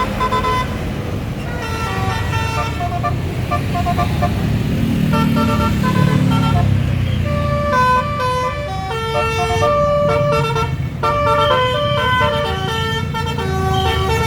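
Tour bus musical horns (telolet/basuri horns) playing quick stepped melodies over a bus engine's low rumble. About halfway through, several horn tunes begin to overlap and clash at once.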